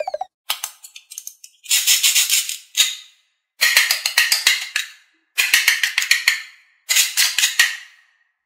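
Hook-and-loop (Velcro) join of a plastic toy cutting orange being ripped apart: four crackly tearing rips of about a second each, after a few faint clicks.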